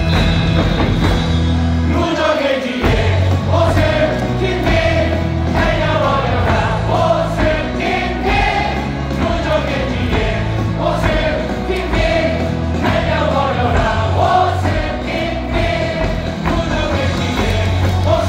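A large stadium crowd of baseball fans singing a cheer song together over loud backing music with a steady bass.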